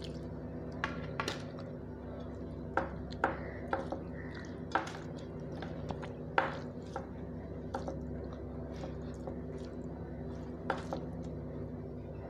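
Dal is poured from a small steel bowl onto rice on a steel plate, then the rice and dal are mixed by hand on the plate. There are scattered sharp clinks against the steel over a steady low hum.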